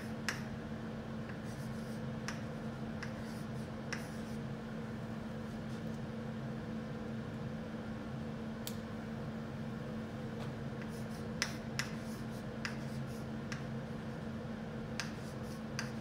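Steady low room hum with scattered sharp taps: chalk striking a chalkboard as figures are written, and keys pressed on a handheld calculator.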